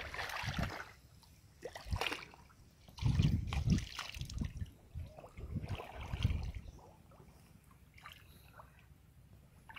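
Wading through shallow muddy water: irregular sloshing steps in bursts, quieter over the last few seconds.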